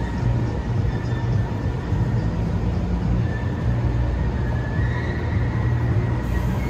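Steady low rumble of a train in a station, with a faint high-pitched squeal growing stronger about four and a half seconds in.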